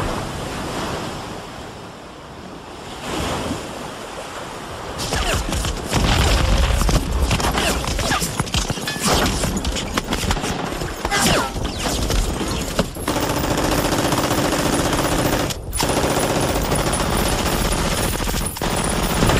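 Battle sound effects: bursts of gunfire and booms, much louder from about five seconds in, with music under them.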